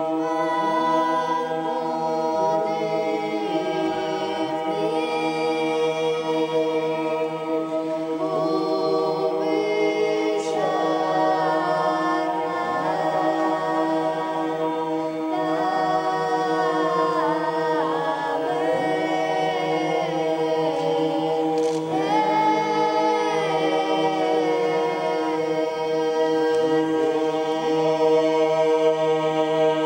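Unaccompanied church choir singing in several parts, with moving upper voices over low notes held steadily throughout, in the style of Orthodox polyphonic chant.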